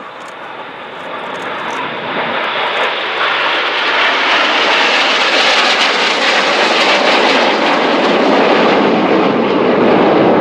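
Jet engine noise of Red Arrows BAE Hawk T1 jets (Rolls-Royce Turbomeca Adour turbofans) making a display pass, growing louder over the first four seconds and then staying loud and steady.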